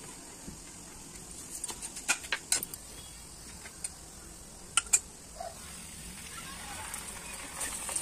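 A metal spatula clinking and scraping against a cooking pan while stirring chicken gravy, a run of sharp clinks in the middle, the loudest a pair about five seconds in. Under it a faint sizzle of the food cooking in oil, growing louder near the end.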